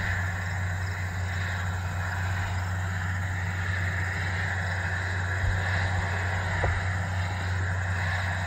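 John Deere 9RT track tractor's diesel engine running steadily under load while pulling a chisel plow: a constant low hum with a steady hiss above it. Two faint knocks come a little past the middle.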